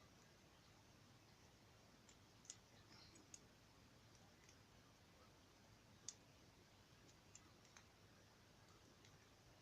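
Faint, sparse clicks of a lock pick working the pin tumblers of a Lockwood 245 padlock during single-pin picking. There are a few sharper ticks, the clearest about two and a half and six seconds in.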